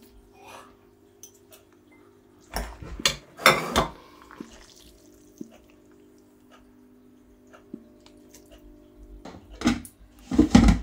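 A metal utensil clattering and scraping in a stainless steel saucepan as spaghetti is lifted out and served into bowls. It comes in two bursts, one about two and a half seconds in and one near the end, over a steady low hum.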